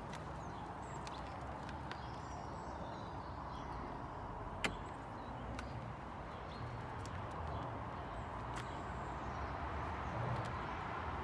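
Outdoor ambience: a steady low rumble with faint distant bird calls and a scattering of small clicks, one sharp click about four and a half seconds in.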